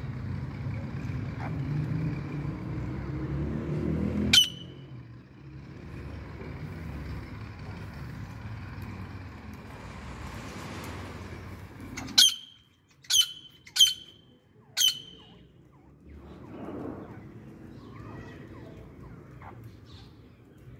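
Caged grey francolin giving five sharp, shrill calls that drop in pitch: one about four seconds in, then four in quick succession about twelve to fifteen seconds in. A low rumble runs under the first few seconds.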